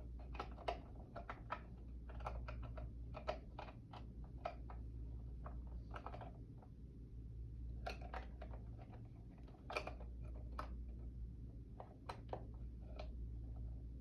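Light, irregular plastic clicks and taps, some in quick little clusters, from the alarm clock being handled, over a faint steady low hum.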